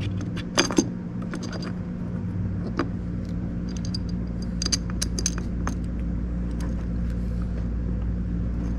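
Light metallic clicks and clinks as the aluminium mounting block of a Power Master starter is turned and shifted by hand on the starter nose, its Allen bolts loosened; a sharper click comes about a second in and a run of small clinks about halfway. A steady low hum underlies it.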